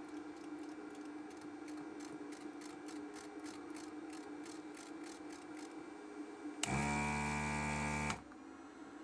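Desoldering station's vacuum pump buzzing for about a second and a half, about two-thirds of the way in, sucking melted solder out of a capacitor joint, then cutting off sharply. Before it, a steady low hum with faint ticking about three times a second.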